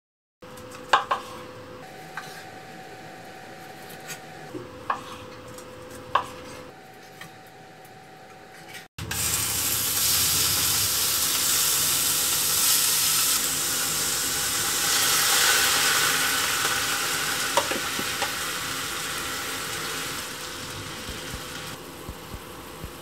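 A few light clicks and taps, then about nine seconds in a loud sizzle starts as thinly sliced pork fries in a hot stone-coated nonstick frying pan, with stirring; the sizzle softens near the end.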